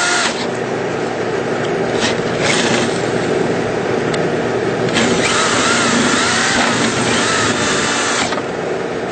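Handheld power drill with a 1/4 inch bit drilling holes into the top of an exhaust fan housing, running in short bursts and then a longer run of about three seconds. A steady engine-like hum runs underneath.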